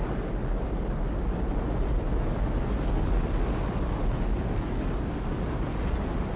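Space Shuttle lifting off: a loud, steady, deep rumble from its rocket boosters and main engines, heaviest in the low bass.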